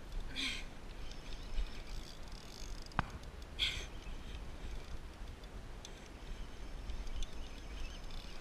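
Water lapping and splashing against a paddle board, over a steady low rumble, with a single sharp knock about three seconds in.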